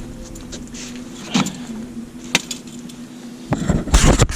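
Boat motor running steadily at trolling speed under two sharp knocks and, near the end, a burst of loud clattering knocks.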